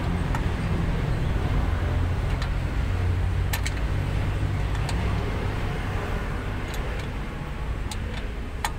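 Steady low vehicle engine rumble, with a few sharp light clicks as the air-brake chamber is handled, the loudest near the end.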